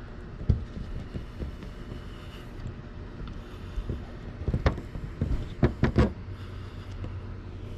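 Wind rumbling on the microphone, with scattered light knocks and a cluster of sharp thumps about four and a half to six seconds in.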